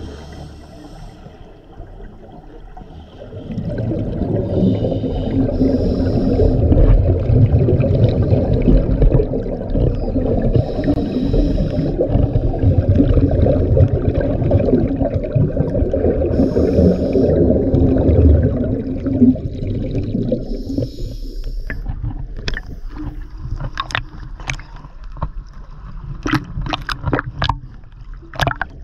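Scuba diving underwater: a low rushing of air bubbles with short hisses every few seconds, typical of a diver breathing through a regulator. It dies down about twenty seconds in, and a run of sharp clicks follows near the end.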